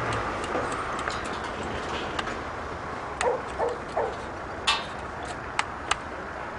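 Scattered sharp knocks and clatter from people working on a rubble pile, with three short barks or yelps from a search-and-rescue dog about three seconds in and two sharp knocks near the end.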